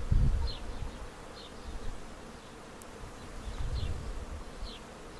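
A honeybee buzzing steadily as it is held between fingers and pressed to the forearm to sting. Gusts of low wind rumble on the microphone, strongest right at the start, and faint short high chirps about once a second.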